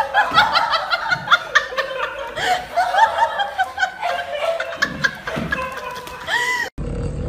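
High-pitched giggling laughter: a quick string of short, squeaky rising-and-falling notes, several a second. It cuts off sharply near the end, giving way to a low steady hum.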